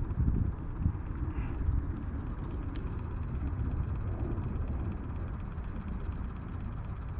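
Wind buffeting the microphone: an uneven low rumble that rises and falls in gusts, strongest in the first second.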